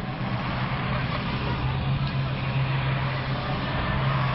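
Steady low mechanical hum, unchanging throughout, over an even wash of outdoor background noise.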